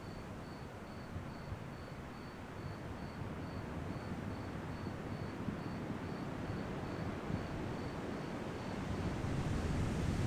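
Ocean waves washing ashore at night, a steady rushing surf that swells near the end. A cricket chirps faintly in a regular high pulse about twice a second.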